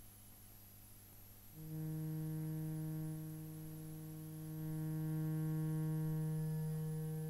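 Synthesizer drone: one low, steady note with a stack of overtones starts about a second and a half in and holds, swelling a little past the middle, over a faint mains hum.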